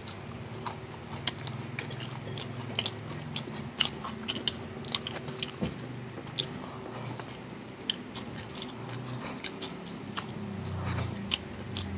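Close-miked eating: irregular crisp crunching bites and chewing of fried food, likely the crisp fried galunggong fish.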